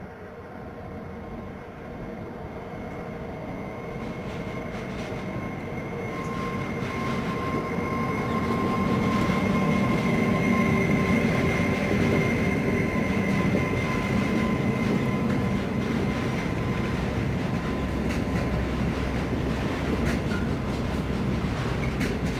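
Freight train of intermodal container wagons, hauled by an electric locomotive, approaching and passing close by: the rumble of the train and its wheels on the rails grows louder over the first nine seconds or so, then stays steady as the wagons roll past, with a high steady whine for several seconds in the middle.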